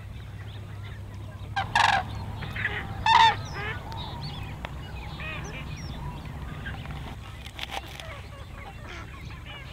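A flock of large birds flying over, calling: two loud calls in the first few seconds and many fainter ones after. Near the end come a few sharp knife chops on a wooden cutting board.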